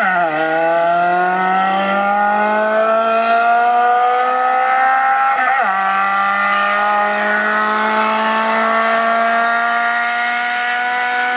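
Car engine under hard acceleration. Its pitch climbs steadily and drops sharply at two gear changes, one right at the start and one about five and a half seconds in.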